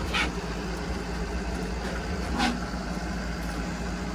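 Engine of a Mudcat horizontal sand dredge running steadily at idle, with two brief clicks.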